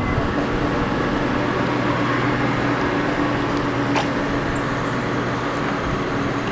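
Engine running steadily with a low, even hum, and a single sharp click about four seconds in.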